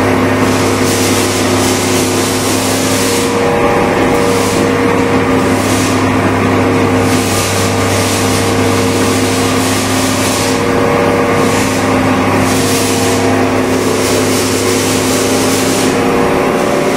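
A motor running steadily with a constant hum, and a hiss that swells and fades every few seconds.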